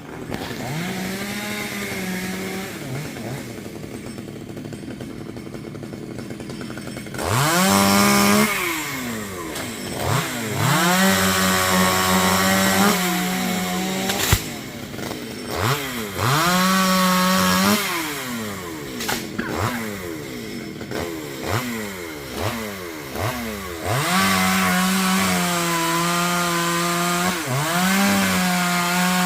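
Two-stroke chainsaw engine running at low revs for the first several seconds, then revved up and down again and again, with the throttle held wide open for a second or more at a time. The longest full-throttle stretch comes near the end.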